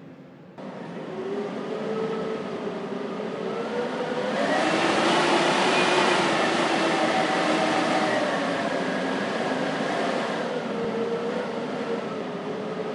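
Blizzard wind blowing hard, with wavering whistling tones over a steady rush. It picks up suddenly about half a second in, swells into a strong gust about four seconds in and eases slightly near the end.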